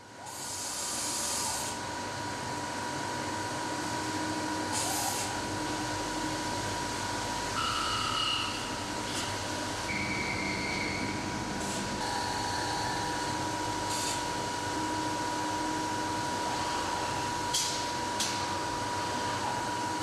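Intermac CNC waterjet cutting a marble slab: a steady hiss of the high-pressure water jet and spray, with a constant thin high tone under it. Sharper bursts of hiss flare up briefly several times.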